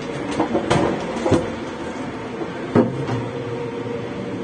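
Three sharp knocks and clunks over a steady mechanical hum and background noise.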